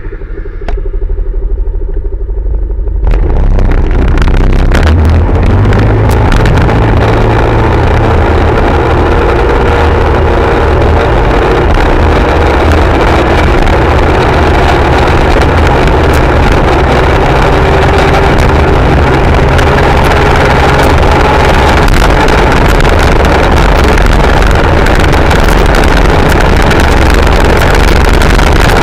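Tuned scooter engine with an aftermarket cam and exhaust idles for a few seconds, then goes to full throttle about three seconds in. It holds a high, loud drone that climbs slowly as the automatic transmission lets speed build toward 140 km/h, under a heavy rush of wind on the microphone.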